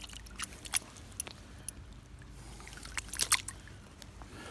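Short, irregular splashes and drips of water from handling a caught brown trout in creek water, with a small cluster about three seconds in, over a low steady rumble.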